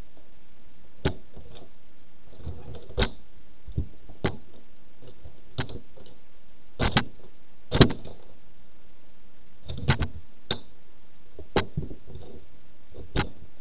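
A plastic toy race car cracking and snapping under the heels of red platform shoes, in a dozen or so irregular sharp knocks and cracks, the loudest a little past the middle.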